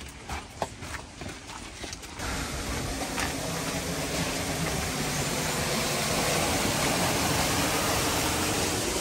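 Footsteps and light knocks, then about two seconds in a loud, steady rushing of flowing water from a stream or irrigation channel begins and carries on.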